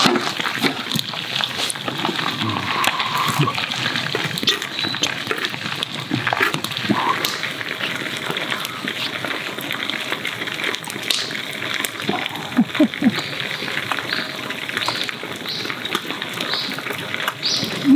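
Oil sizzling steadily with dense crackling as food deep-fries in a pot over a campfire.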